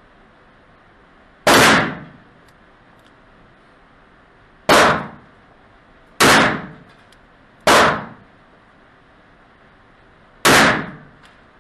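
Five gunshots from a .41 Magnum firing handloaded cartridges, at uneven spacing of one to three seconds. Each is a sharp crack that trails off in about half a second.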